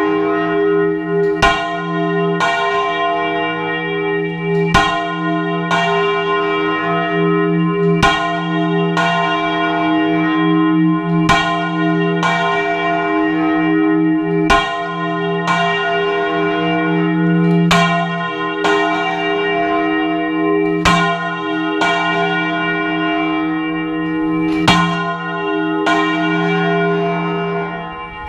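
A large cathedral church bell swung full circle (rung a volteo), its clapper striking about once a second over a steady, loud ringing hum.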